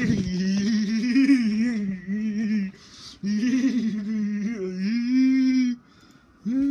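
A person humming a wordless tune close by, in sustained, wavering phrases with two short breaks.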